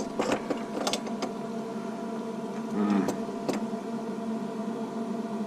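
A steady electrical hum, with a few sharp clicks and taps in the first second or so and again about three seconds in.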